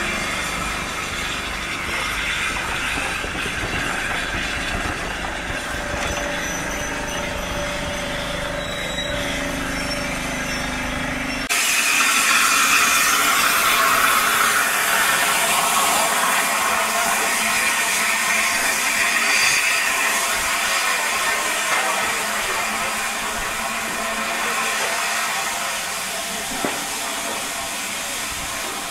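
Mk1 passenger coaches rolling past with a steady rumble. About eleven seconds in it changes suddenly to a loud, steady hiss of steam escaping from around the cylinders of the A1 Pacific steam locomotive 60163 Tornado standing at the platform.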